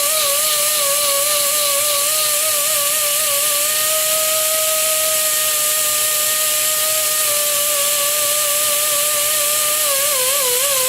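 Electric sander grinding the beam of a steel Chevy connecting rod: a steady motor whine over a strong abrasive hiss, the pitch wavering at times as the rod is pressed against it and holding level in the middle.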